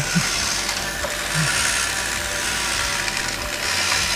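Battery-powered walking mechanisms of the Omega Supreme and Skylynx Transformers toys running: small electric motors driving plastic gear trains in a steady whir.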